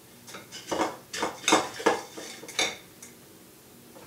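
A spoon clinking and scraping against a bowl while stirring Cheerios and peanut butter: a quick, irregular run of clinks for about three seconds, then it stops.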